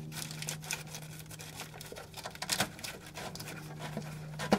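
Faint rustling and scattered small clicks of a corrugated plastic wire loom on an extension harness being pushed through, with a sharper click near the end and a steady low hum underneath.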